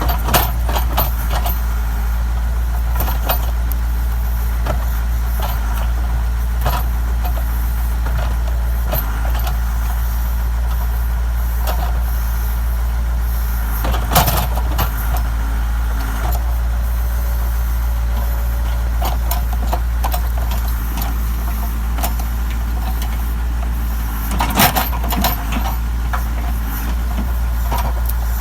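Backhoe's diesel engine running steadily, with occasional sharp cracks and knocks over it, the largest about 14 seconds in and a cluster around 25 seconds.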